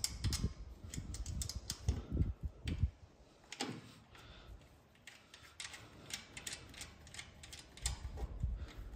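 Irregular small metallic clicks and taps as a bolt is pushed through a steel mounting bracket and the generator frame, with heavier knocks in the first few seconds and again near the end.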